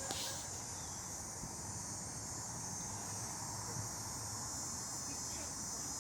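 Steady high-pitched chorus of insects, a continuous buzzing drone, over faint low wind rumble.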